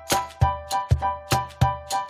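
Background music: a light, bouncy tune of short plucked or struck notes over a bass beat, about three notes a second.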